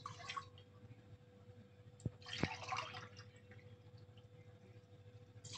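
Water poured from a drinking glass into a stainless steel pot, faint splashing. Two light clicks come about two seconds in, followed by a second short splash.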